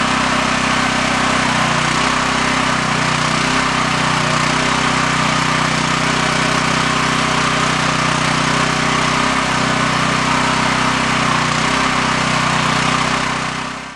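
Mini excavator's small gasoline engine running steadily at working speed while it powers the hydraulic boom and bucket digging a trench. The pitch wavers slightly now and then, and the sound fades out at the very end.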